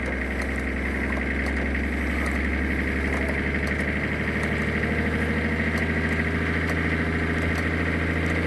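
A truck engine held at raised revs, its pitch creeping slowly higher, as it strains on a line against a deep-rooted gorse bush that does not come out.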